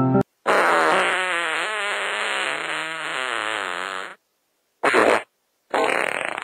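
Fart sounds: one long, wobbling blast lasting nearly four seconds, then two short ones.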